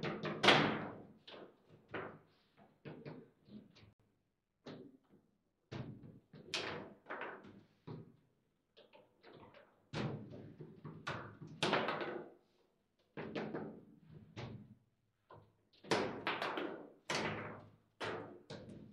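Table football game in play: the ball and the plastic player figures knocking against each other and the table, heard as irregular sharp knocks and thuds, some in quick clusters, with brief pauses between rallies.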